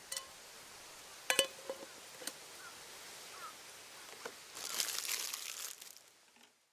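Campfire cooking sounds: a few light clicks and a ringing metallic clink about a second and a half in, then a burst of crackling hiss lasting about a second near the end before the sound fades away.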